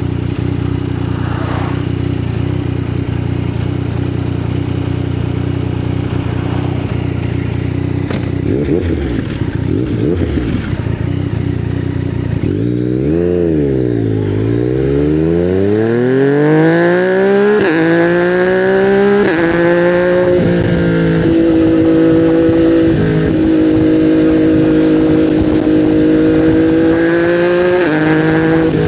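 2020 Yamaha MT-09's three-cylinder engine through custom headers and a titanium Akrapovic silencer, idling steadily, then blipped twice. It pulls away with the pitch climbing through several quick gear changes and settles into a steady run with small throttle changes.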